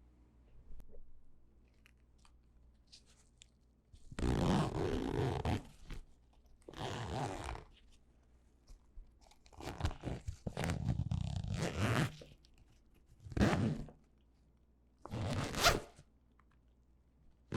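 Zipper being pulled back and forth several times, each pull a short rasping run of teeth that lasts from under a second to about two seconds, with pauses between.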